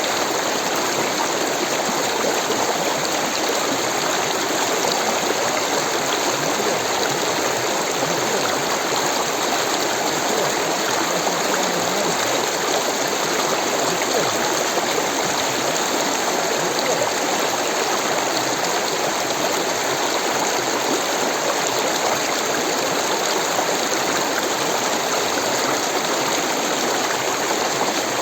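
Rushing water: a stream flowing with a steady, unbroken sound.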